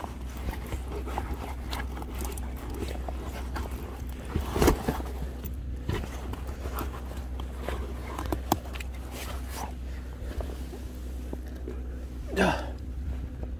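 Scattered knocks and clicks of footsteps and handling on loose stones, with one louder knock a little under five seconds in, over a steady low hum. A brief voice-like sound comes near the end.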